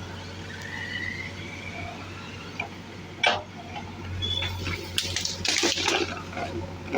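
JCB 3DX backhoe loader's diesel engine running steadily, with a sharp knock about three seconds in. From about five seconds in comes a loud rush and clatter of loose sand pouring from the bucket into a tractor trolley.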